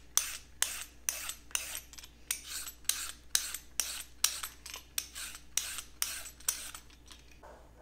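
Vegetable peeler scraping down a raw carrot, shaving it into thin ribbons in quick repeated strokes, about three a second, stopping shortly before the end.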